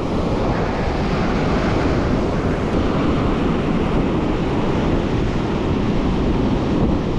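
Rough sea surf breaking and washing over rocks, a steady rush of noise, with wind buffeting the microphone.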